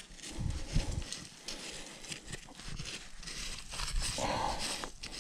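Hand digging tool scraping and chopping into dry, clumpy field soil, with irregular scrapes, knocks and crumbling clods as a hole is dug to recover a metal detector target.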